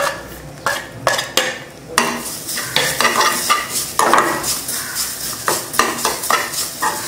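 A metal spoon knocking and scraping grated coconut off a steel plate into a dry metal pan, with sharp clicks for about the first two seconds. Then continuous stirring and scraping of the coconut around the pan's metal base, with frequent small knocks. This is dry-roasting without oil to drive off the coconut's moisture.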